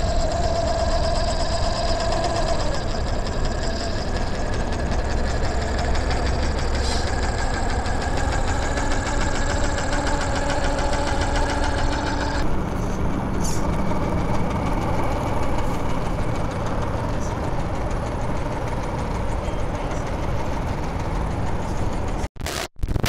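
An engine idling steadily, its tone changing about twelve seconds in, then breaking off in stuttering dropouts near the end.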